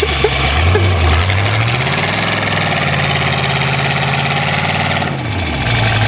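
A crash-damaged car's engine revving: its pitch climbs about two seconds in, holds steady, then drops back near the end, over a steady hiss.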